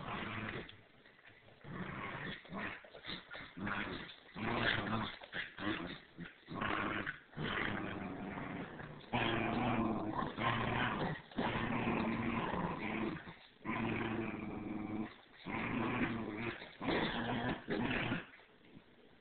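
Dogs growling in play, a standard schnauzer puppy and a Bichon Frise tugging on a toy, in repeated bouts broken by short pauses.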